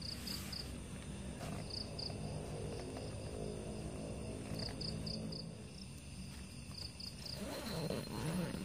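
Crickets chirping at night: short high chirps in quick groups of three, repeating every second or two, over a steady low hum. A louder noise rises near the end.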